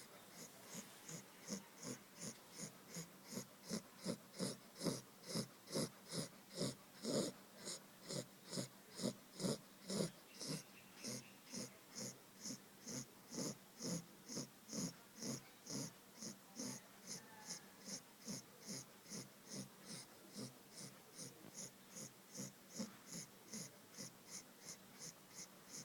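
Two-month-old Labrador Retriever puppy snoring softly in its sleep: quick, even breaths, about two to three a second, a little louder around the middle.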